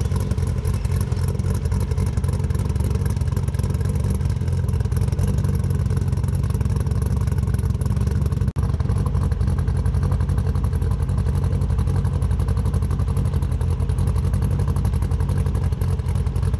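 Turbocharged, fully forged RB30 straight-six in a Nissan R31 Skyline, fitted with a big Crow cam, running steadily and heard at the exhaust. The sound drops out for an instant about halfway through.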